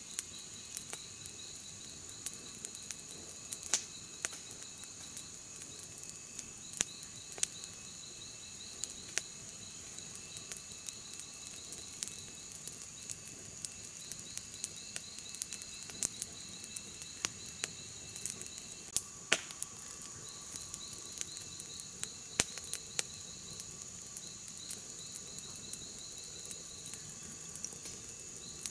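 Insects chirping, likely crickets: a steady high-pitched trill with repeated runs of rapid chirps just below it, over scattered sharp clicks and crackles.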